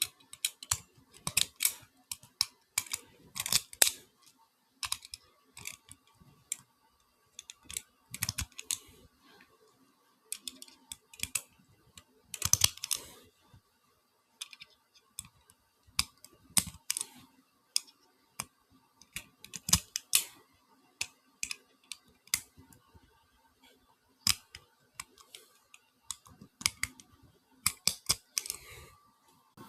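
9mm Luger cartridges being pressed one at a time into a Smith & Wesson SD9's 16-round pistol magazine: irregular sharp clicks and snaps in clusters a second or two apart.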